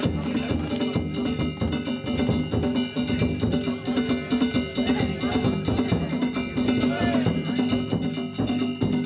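Danjiri festival percussion: rapid drum strokes under the continuous ringing of small metal hand gongs.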